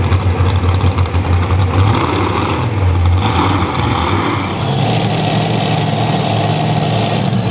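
Modified pulling tractor with four naturally aspirated Ford engines running at low speed after its pull, a heavy steady low throb. About four and a half seconds in the sound changes to another modified pulling tractor's engine idling.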